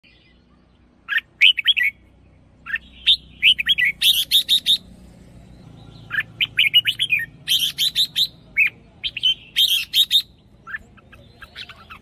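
Red-whiskered bulbul singing: a run of short, bright, quick-note phrases, coming in groups with brief pauses between them.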